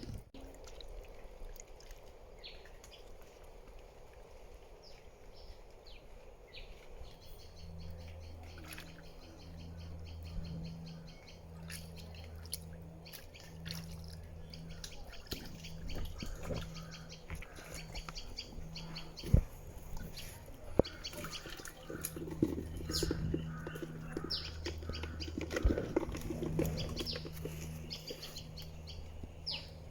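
Water splashing and dripping as hands work through shallow muddy water, with birds chirping. From about eight seconds in, a low hum comes and goes.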